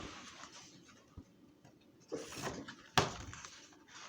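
Picture-book page being handled and turned: a brief papery rustle about two seconds in, then a single sharp tap about a second later.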